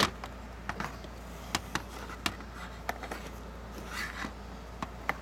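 A few scattered light clicks and taps from handling, over a steady low hum.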